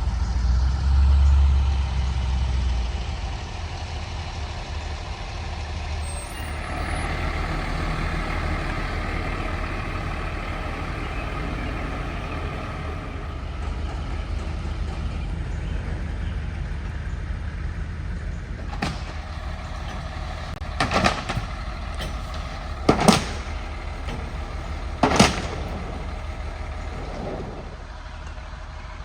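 Heavy diesel engine of tree-removal machinery running steadily, louder for a moment at the start, with a pitched whine for several seconds and then a series of short sharp bursts about two seconds apart in the second half.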